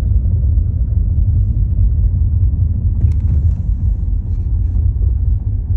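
Low, steady rumble of a car driving, heard from inside the cabin, with a brief click about three seconds in.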